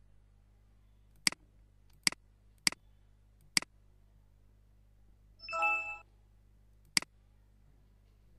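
Computer mouse clicking: four sharp clicks in the first four seconds and one more near the end. In between comes a short chime of several notes lasting about half a second, the new-email notification sound of the Checker Plus for Gmail extension.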